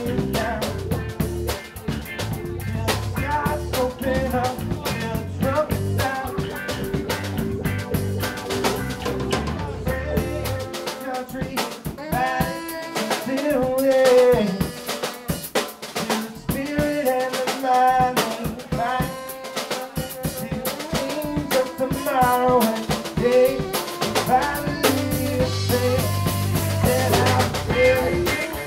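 Live bar band playing a cover song on drum kit, electric bass and electric guitar, the snare and rimshots prominent. About ten seconds in the bass drops out, leaving drums and a bending melody line higher up, and it comes back in near the end.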